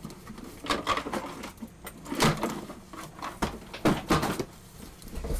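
Handling noise: a string of irregular knocks and clunks as objects are picked up and moved about. There is no steady motor sound.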